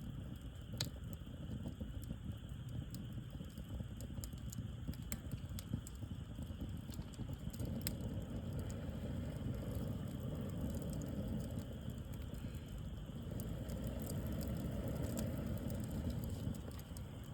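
Wood bonfire burning, with scattered sharp crackles and pops over a steady low rumble.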